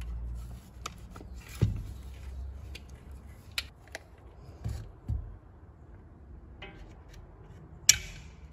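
Pliers and a small metal spring clicking and knocking against the plastic housing of a Chevrolet Corsa Classic manual door mirror as the spring is hooked into place inside it. Scattered clicks and taps, with a dull thump early on and the sharpest click near the end.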